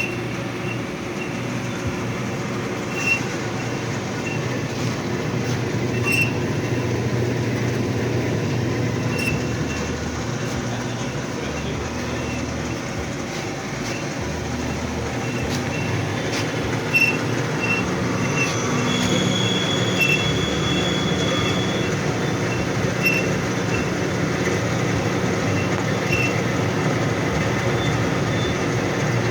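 Vertical bandsaw running, a steady machine hum with a light tick about every three seconds. About two-thirds in, a high squeal is held for a few seconds.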